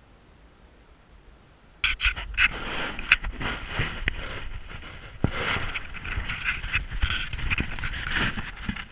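Close handling noise on an action camera: irregular rubbing, scraping and knocks against the microphone, starting suddenly about two seconds in after near quiet.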